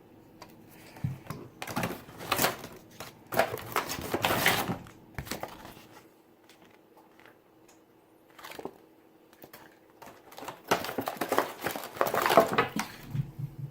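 Handling noise: crinkling and rustling with scattered clicks, in two stretches, one starting about two seconds in and another about eleven seconds in.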